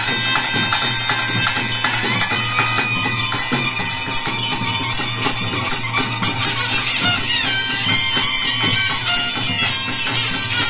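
Live traditional Bhuta Kola ritual music: fast, continuous drumming and jingling percussion under a pipe melody that slides up and down in pitch.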